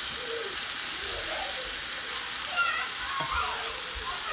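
Diced char siu pork frying in a cast iron skillet of thickening sauce: a steady sizzle, stirred with a spatula. The sauce looks like it is starting to burn on the pan.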